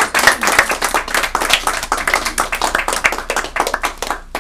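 A small group of people clapping their hands in applause, dense and steady, dying down near the end.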